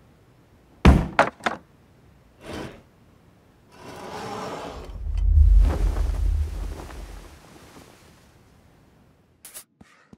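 Cartoon sound effects: a quick run of sharp thumps about a second in and a single knock shortly after, then a long rumbling crash that swells, peaks in the middle and fades out. A short click comes near the end.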